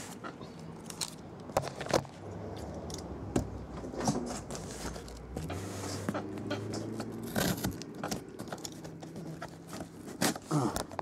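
A cardboard master case of card boxes being handled on a table, scraping and knocking with many short taps. A low steady hum comes and goes underneath.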